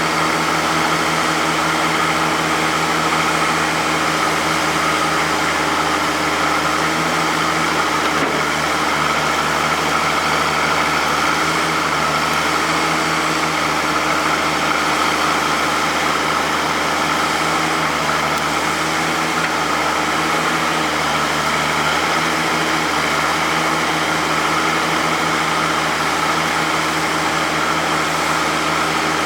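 Oliver 88WT tractor backhoe's engine running steadily at an even speed.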